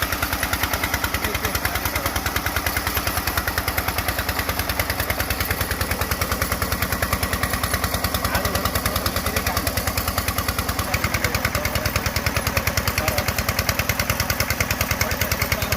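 Engine of a soil-test drilling rig running steadily, a rapid, even knock.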